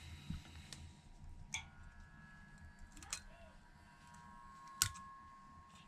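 A handful of light clicks and taps from small precision repair tools working on an iPhone 8's internals as a bracket is taken off, the sharpest about five seconds in.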